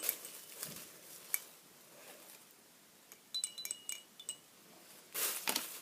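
Small hard objects being handled and tapping together: a few light knocks, then a quick cluster of short, ringing clinks about three and a half seconds in, and a brief rustle near the end.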